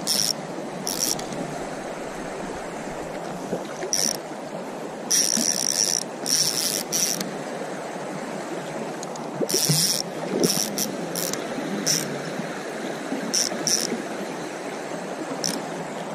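Spinning reel whirring in a dozen or so short, irregular bursts as a hooked trout is played on a freshly tightened drag, over the steady rush of a flowing stream.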